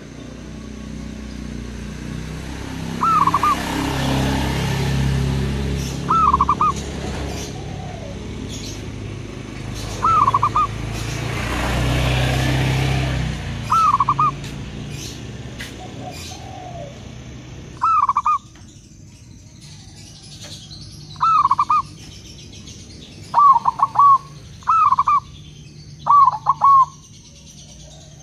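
Zebra dove (perkutut) repeatedly giving its short staccato cooing song, nine phrases of a few quick notes each, coming faster near the end. A low rumbling background swell rises and fades in the first half.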